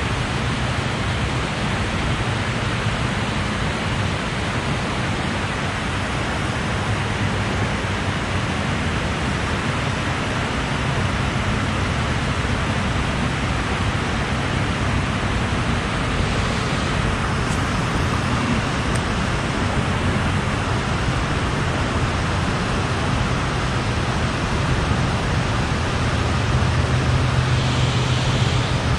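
Steady rushing water below a dam, an even, continuous noise with a low rumble underneath.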